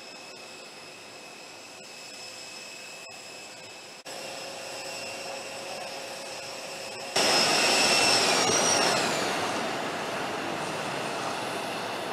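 Jet engine whine from Air Force One, a Boeing 747, with a steady high whine over a roar. It gets abruptly louder about four seconds in and again about seven seconds in. Soon after, the whine drops in pitch and leaves a steady roar.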